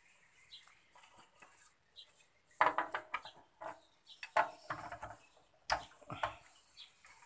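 A metal wrench clinking and rattling against the crankcase bolts of a small OHV generator engine as a bolt is worked loose. The metal clatter comes in three short bursts: about two and a half, four and a half and six seconds in.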